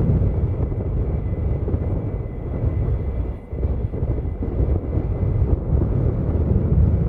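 Jet airplane engines producing a steady low rumble, with a faint steady whine above it and a brief dip about three and a half seconds in.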